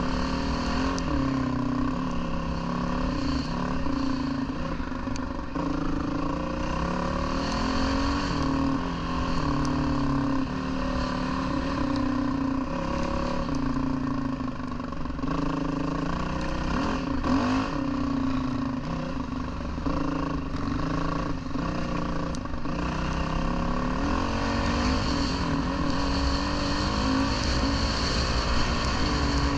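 Dirt bike engine running under way, its pitch rising and falling again and again with throttle and gear changes, over a dense low rumble.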